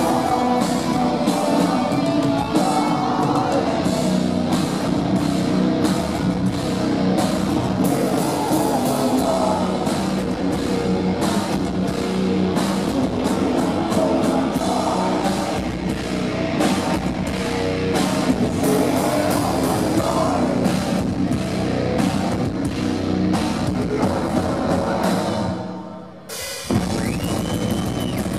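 Heavy metal band playing live: distorted electric guitars and a drum kit hit at a fast, dense pace, with vocals over them. About two seconds before the end the music sinks briefly and is cut abruptly into another loud passage.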